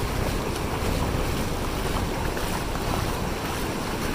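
Sea surf washing steadily, with wind rumbling on the microphone.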